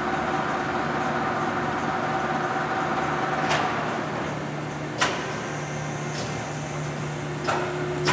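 1973 American Zip Shift heavy-duty engine lathe running under power, a steady mechanical hum with a thin whine that stops about halfway. Several sharp clicks, one about halfway and a few more near the end, come as the spindle speed is shifted up from 47 RPM.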